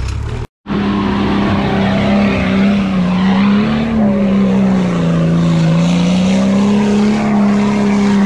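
A 4WD's engine held at high, fairly steady revs with its wheels spinning as it ploughs through a mud bog hole. The revs rise and fall slightly, and the sound starts abruptly after a short silence about half a second in.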